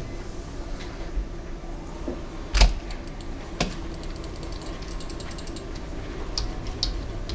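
A few sharp clicks from a computer keyboard and mouse at a desk, the loudest about a third of the way in and another a second later, over a steady low hum.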